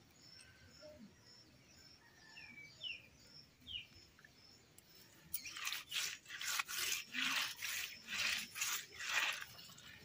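Hands rubbing and scraping a heap of small fish against dry dirt ground: a rhythmic scrubbing of two to three strokes a second begins about halfway through and is the loudest sound. Before it, only faint high bird chirps.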